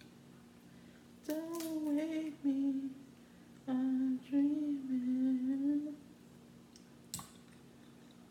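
A woman humming a tune with her mouth closed, in two phrases of a second or two each with a short pause between. One sharp click follows near the end.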